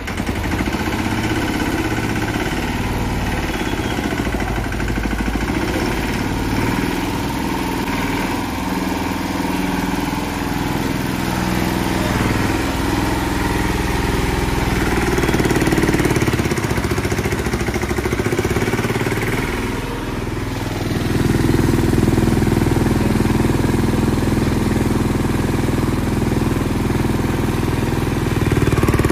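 Swaraj 717 mini tractor's single-cylinder diesel engine running steadily, getting louder from about 21 seconds in.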